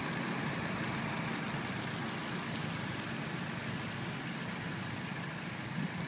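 Hydroseeding machine's engine running steadily, a low, even hum.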